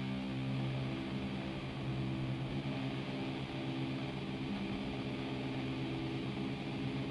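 Background music: a slow, droning distorted electric guitar holding sustained notes over a steady hiss of distortion.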